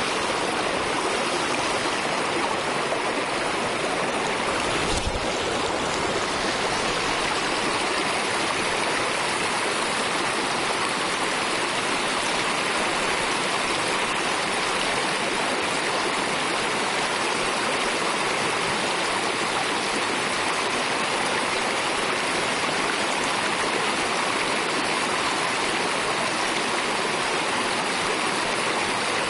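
Shallow creek water running and splashing over stones, a steady rushing.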